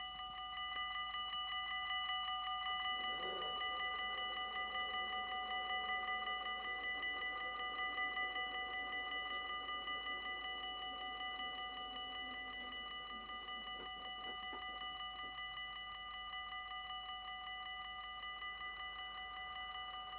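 Dutch level-crossing warning bell ringing in quick, steady strokes. From about three seconds in, the lower hum of the barrier drive lowering the booms comes in under the bell and ends with a few knocks around fourteen seconds in, as the booms come to rest.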